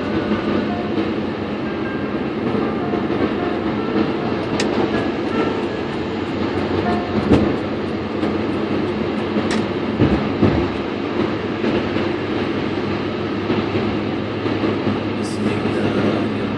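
Steady road and tyre noise inside the cabin of a 2011 Chevrolet Lanos cruising at highway speed. A few light clicks and two brief thumps, about seven and ten seconds in, stand out above the rumble.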